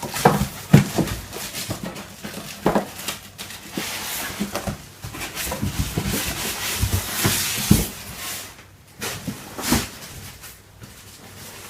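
Rustling and crinkling of packaging with scattered knocks and thumps as a hoverboard is unpacked from its cardboard box.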